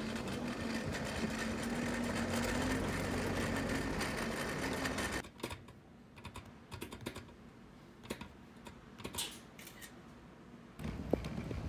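Kick scooter's small wheels rolling over a paved sidewalk, a steady rumble with a faint low hum. About five seconds in it stops, giving way to a quieter stretch of scattered light taps and clicks at a package locker's touchscreen keypad, and the rolling noise comes back near the end.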